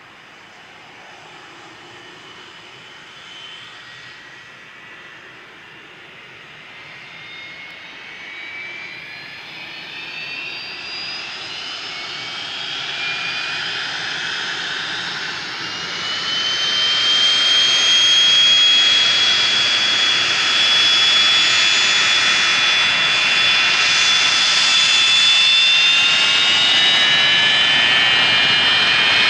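Idling whine of a McDonnell Douglas MD-82's rear-mounted Pratt & Whitney JT8D turbofans as the jet taxis and turns to line up on the runway. The whine climbs in pitch and grows louder through the first half, then holds as a loud, steady high whine.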